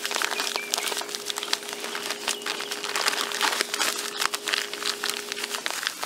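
Crinkling and rustling of a play-sand bag being handled and closed up after pouring, with irregular crackles throughout. A steady low hum runs in the background and stops shortly before the end.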